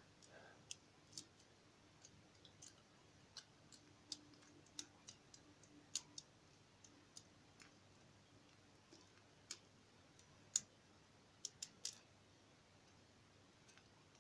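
Faint, irregular clicks of a thin lock pick working the sliders of a Chinese slider/wafer lockout padlock, a couple of sharp ticks a second at uneven spacing.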